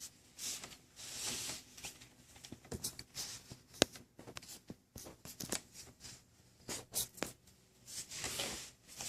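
Close rustling and scraping with scattered sharp clicks and taps, irregular and on and off.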